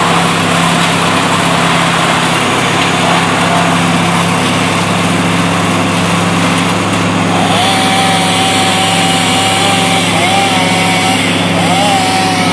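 Engine-driven tree-cutting equipment running steadily. About seven and a half seconds in, a higher engine tone joins and holds, dipping briefly twice.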